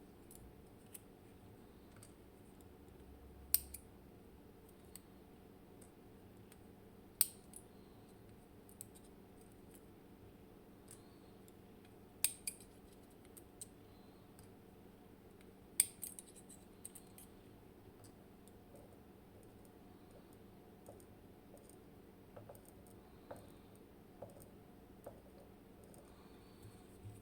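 Driver pins being taken out of a gutted M&C Matrix lock cylinder and set down: small sharp metallic clicks every few seconds, four of them louder, with fainter ticks and scrapes between, over a low steady hum.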